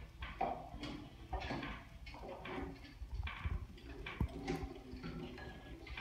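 A galah and an eclectus parrot clambering on a rope cargo net: short, irregular scuffs, rustles and soft chatter, with a sharp little knock about four seconds in.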